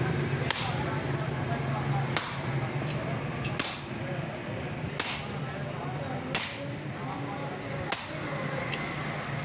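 Hammer blows on a cold chisel cutting through a steel truck leaf spring: about seven sharp metallic strikes, one every second and a half or so, over a steady low hum.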